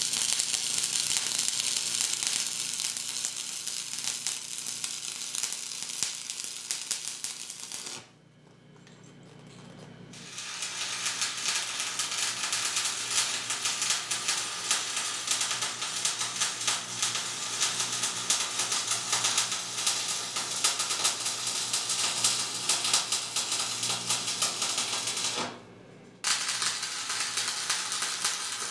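Stick-welding arc crackling and sizzling steadily on steel. The arc stops about eight seconds in for roughly two seconds, strikes again, and breaks once more for under a second near the end.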